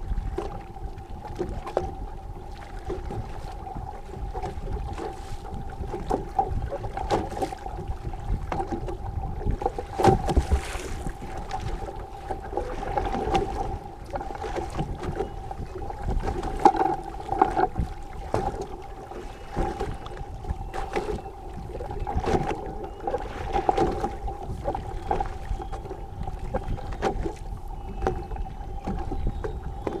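Boat engine running steadily, a constant hum with a low rumble, over many irregular short knocks.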